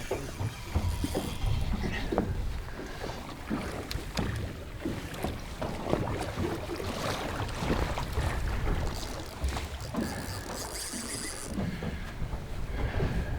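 Wind buffeting the microphone and water slapping against a small boat's hull, with scattered knocks and clicks from gear being handled.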